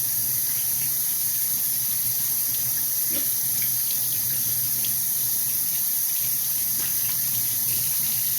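Kitchen tap running steadily into a sink, a constant hiss of water with a few small splashes.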